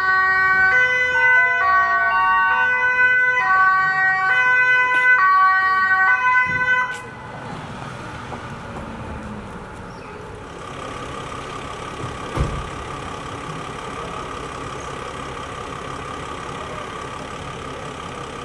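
Ambulance two-tone siren switching back and forth between high and low pitch about every two-thirds of a second, cut off suddenly about seven seconds in. A steady engine hum follows, with one short thump.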